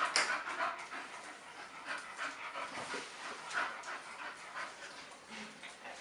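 A dog panting, a quick irregular run of breaths.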